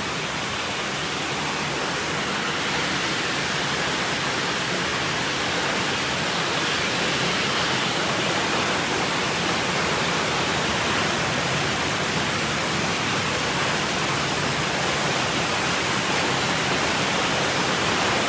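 Continuous loud rush of water in a flash flood during torrential rain, an even hiss without separate events.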